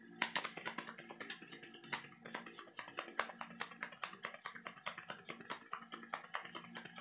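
A deck of tarot cards being shuffled by hand, a quick, uneven run of soft card slaps and clicks.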